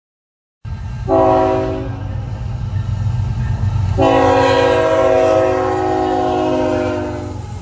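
Freight locomotive horn on KCS GE ET44AC 5013, sounding one short blast and then a long blast that drops slightly in pitch as the locomotive passes. Underneath, a second locomotive and the diesel engines of the passing grain train rumble steadily. The sound cuts in abruptly just under a second in.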